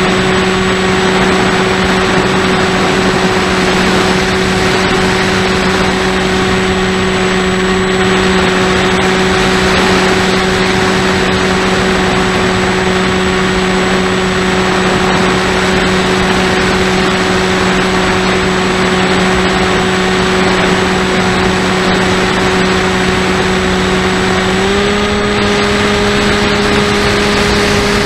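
Model aircraft's motor and propeller running steadily, heard from the camera on board: a steady hum over rushing wind noise. The pitch steps up slightly near the end.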